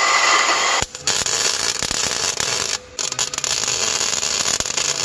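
A Milwaukee power saw cutting through steel plate, stopping abruptly just under a second in. After two short breaks, the steady crackle of arc welding, full of small pops, as a steel patch is welded onto the frame rail.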